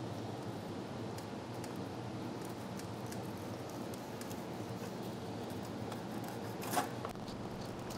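Small scraping and rubbing sounds as gloved hands peel old gasket material off a steel transmission pan's rim and scrub the pan with a pad, over a steady low background hum. One sharper click comes near the end.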